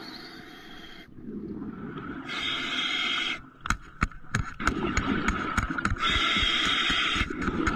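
Diver breathing underwater through a compressor-fed (hookah) regulator: a bubbling rumble of exhaled air, then about a second of hissing inhalation, twice over. A few sharp clicks and knocks come in the middle, between the breaths.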